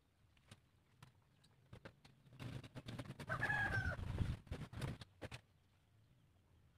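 Machete blade chopping into the roots and soil at the base of a waru (sea hibiscus) tree being dug up: scattered sharp knocks, with heavier thudding through the middle. A brief pitched call sounds about three and a half seconds in.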